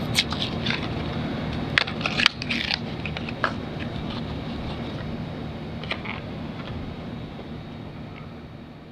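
Hands fitting a new amber turn-signal bulb into its socket: a few small clicks and scrapes in the first three seconds and one more near six seconds, over a steady low hum.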